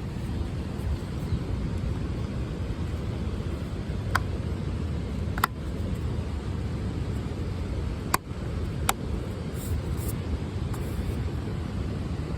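Subaru Sambar Dias Wagon being driven: a steady low drone of road and engine noise, broken by four short sharp clicks or knocks at irregular intervals.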